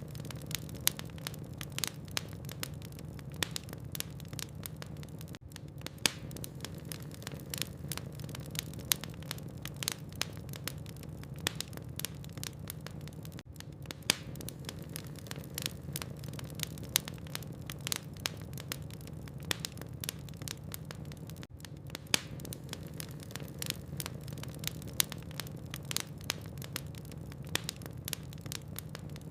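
Wood logs burning in a fireplace, crackling with many irregular sharp pops and snaps over a steady low hum. The background briefly drops out three times, about every eight seconds.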